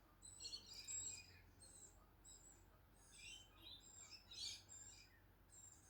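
Male budgerigar warbling: a faint, continual run of quick high chirps and whistles.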